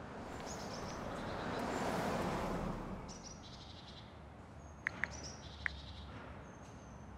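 Birds chirping faintly in the background, under a broad whoosh that swells up and fades over the first three seconds. About five seconds in come three soft clicks, like taps on a phone screen.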